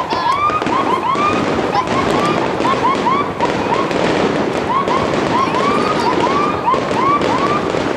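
Fireworks display going off continuously: many short whistles rise and curl over one after another, over a dense steady crackle.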